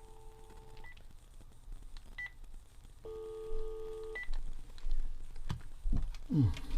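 Panasonic cordless phone's replacement hands-free speaker playing telephone tones: a steady line tone that stops about a second in, short high key beeps three times, and a held multi-tone signal for about a second near the middle, followed by a few clicks near the end. The 0.25 W replacement speaker is working, but its output is weak.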